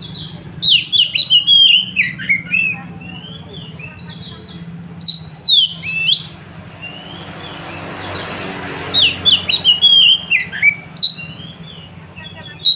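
Oriental magpie-robin (kacer) singing: three loud bursts of rapid whistled and scratchy phrases that swoop sharply up and down in pitch, with short pauses between them.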